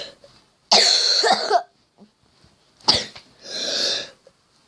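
A person coughing in two harsh bouts, one about a second in and another near three seconds, with a noisy breath after the second.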